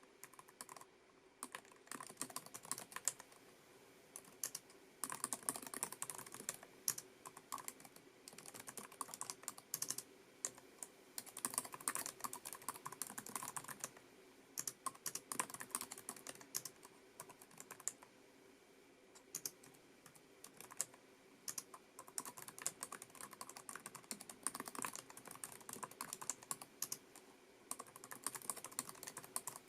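Typing on a Lenovo ThinkPad TrackPoint Keyboard II. Its low-profile scissor-switch keys make light, quick clicks in continuous runs broken by short pauses.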